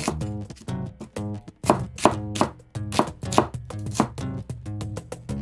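Kitchen knife thinly slicing an onion, each stroke cutting through and tapping the cutting board in a quick, uneven series. Background music plays underneath.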